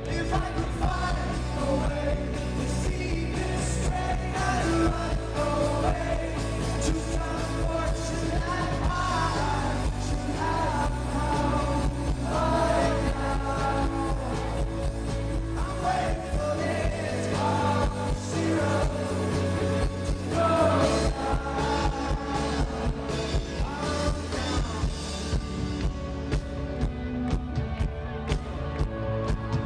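Indie rock band playing live, with a male lead vocal over guitars, bass and drums. The bass thins out for a few seconds about halfway through.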